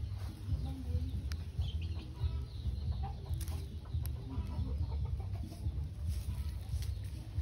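Steady low rumble with faint, short, scattered animal calls and a few light clicks and rustles of dry leaves.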